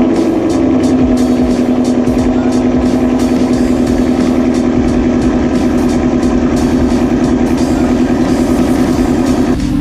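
A car engine running steadily at idle, loud, under background music.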